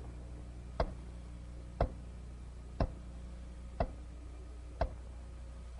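Five sharp ticks, one every second, like a clock or timer, over a steady low hum.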